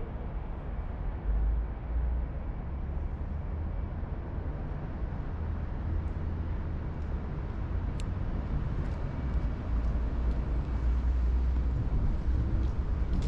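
Steady city traffic rumble, a low continuous roar of passing vehicles, with a few faint high ticks and one sharper click about eight seconds in.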